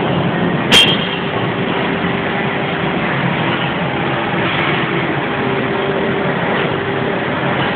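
ADIGE LT120 laser tube cutting machine running: a steady mechanical hum and hiss with a faint tone that comes and goes. One sharp click sounds about a second in.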